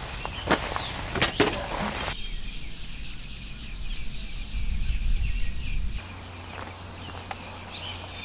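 Rustling and several sharp clicks from a tent's nylon door and fabric as someone climbs out, then a low wind rumble that swells and cuts off about six seconds in, over steady insect buzzing.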